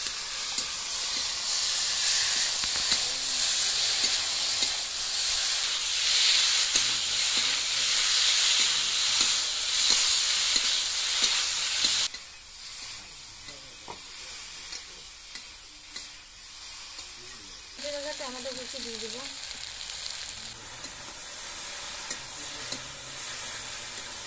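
Brinjal pieces and ground spice paste sizzling in hot oil in an iron kadai, stirred with a metal spatula. A loud, steady hiss drops suddenly to a quieter sizzle about halfway through.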